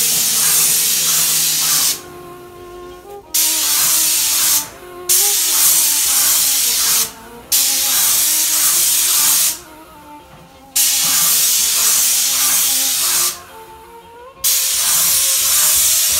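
Graco 390 airless paint sprayer's gun spraying in about six loud bursts of hiss, each lasting one and a half to two and a half seconds with short breaks between, as the trigger is pulled and released on each pass along the wall.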